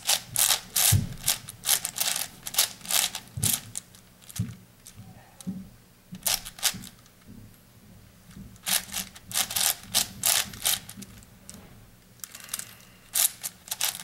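Plastic 8x8 puzzle cube being turned by hand: quick runs of clicking layer turns. A quieter pause of about four seconds falls in the middle, then the turning starts again.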